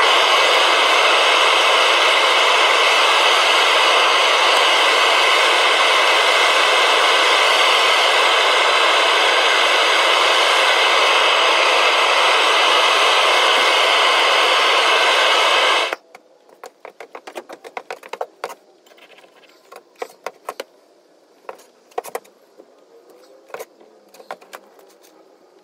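Propane burner of a Devil Forge melting furnace running with a steady hiss, cut off suddenly about 16 seconds in. After that come scattered metallic clinks and scrapes as the skimmer and crucible tongs knock against the crucible of molten brass.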